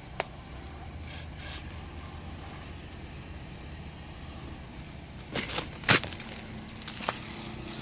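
Steady low rumble of road traffic, with a few sharp clicks and crunches, loudest about six seconds in.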